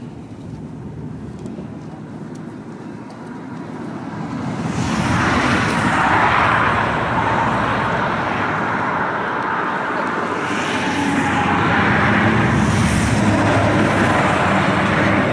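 Road traffic on a highway bridge: a rush of tyre and engine noise that swells about four seconds in and stays loud.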